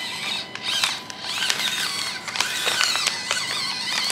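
Axial SCX24 mini crawler's small electric motor and gearbox whining, the pitch rising and falling with the throttle. Its tyres crinkle and crackle over crumpled brown paper.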